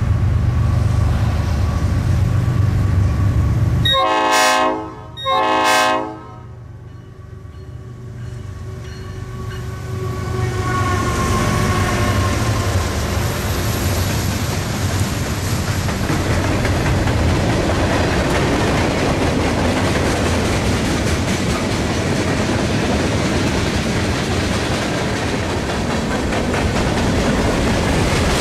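A loud low rumble, then two short blasts of a Nathan P5 five-chime air horn about four seconds in. After a brief lull, a CSX freight train's rumble builds from about ten seconds in and runs on steadily as the train passes.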